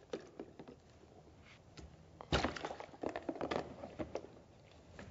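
Plastic lock gates of an Aquaplay toy canal set being handled: a few light clicks, one louder knock a little over two seconds in, then a quick run of plastic clicks and knocks.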